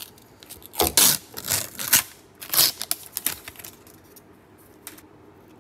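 Protective film being peeled off a MacBook Pro power adapter, crackling and ripping in several bursts over about three seconds, then going quiet near the end.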